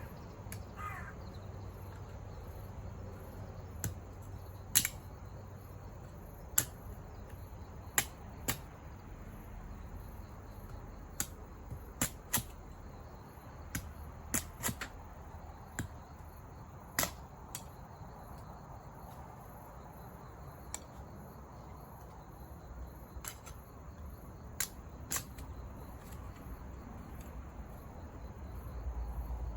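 Wood campfire crackling: sharp, irregular pops, about one every second or two.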